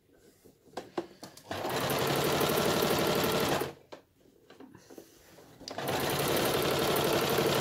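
Toyota electronic sewing machine stitching a seam through cushion-cover fabric in two runs of about two seconds each, a steady rapid run of needle strokes. Between the runs it stops while the fabric is shifted, with a few light handling clicks.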